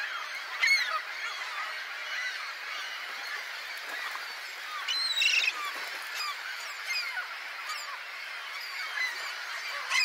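Dense chorus of a waterbird colony, greater flamingos and gulls calling together: many overlapping goose-like honks and chattering calls, with a couple of louder calls standing out about a second in and around the middle.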